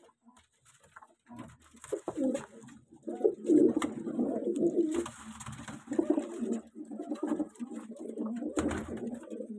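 Fighter pigeons cooing in a small loft, several birds overlapping. The cooing starts about two seconds in and carries on to the end.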